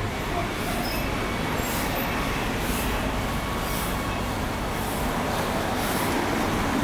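Street traffic: a steady hum of cars and motor scooters on a town street, with soft swishes recurring about once a second.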